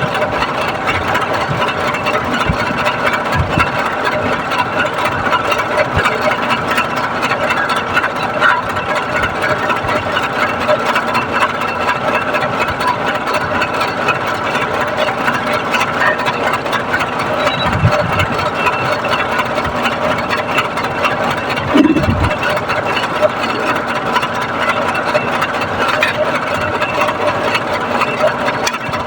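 A motor-driven machine running steadily with a constant hum, with a few brief low thumps.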